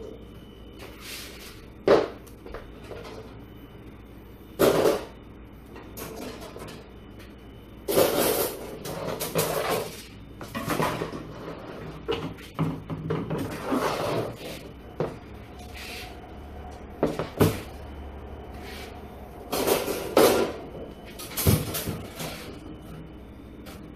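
Steel wire rack clanking and rattling as its tier pieces are lifted out and the frame is folded flat: irregular metal knocks and clatters, with several sharper bangs spread through.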